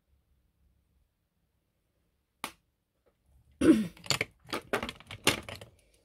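Small cosmetic items being handled close to the microphone: a single sharp click about two and a half seconds in, then a string of knocks and clatters, the first the loudest.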